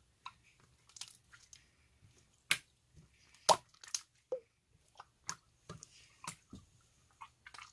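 Irregular sharp clicks and crackling snaps, a few to a second, some much louder than others.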